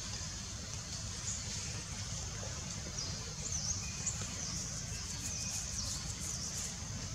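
Birds chirping with high, quick calls over a steady low rumble of outdoor background noise. The chirps are busiest in the second half.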